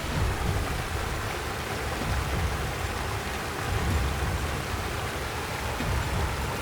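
Rain falling steadily, an even hiss with a low rumble underneath.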